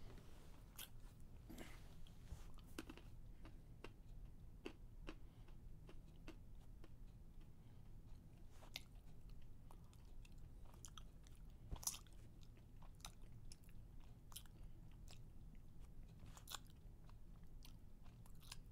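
Near silence: a faint low hum with scattered faint clicks and crackles at irregular intervals, one a little stronger about twelve seconds in.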